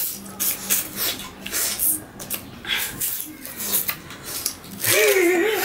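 Raw sugar cane being bitten, its hard peel stripped off with the teeth and the fibrous stalk chewed: a run of loud crunching, tearing and rasping strokes. A person's voice comes in near the end.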